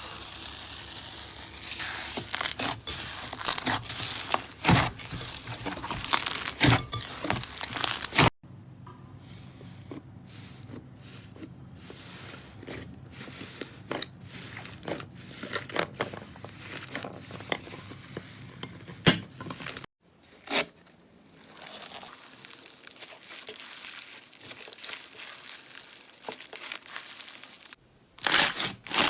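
Slime being squeezed and pressed by hand, giving dense crackling clicks and pops. The sound breaks off and changes character about eight seconds in and again near twenty seconds.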